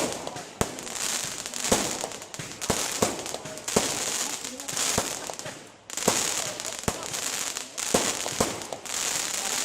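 Aerial fireworks display: shells bursting with sharp bangs about once a second over continuous crackling, with a brief lull a little past halfway.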